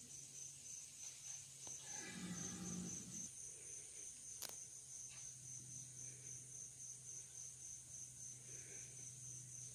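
Crickets chirping in a steady, even pulse of about three chirps a second, over a faint low hum. About two seconds in, a brief low sound stands out for around a second.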